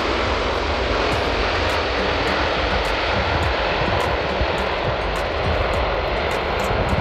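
Kawasaki C-2 (XC-2) military transport's twin General Electric CF6 turbofan engines running at takeoff power during the takeoff roll: a steady, loud jet noise.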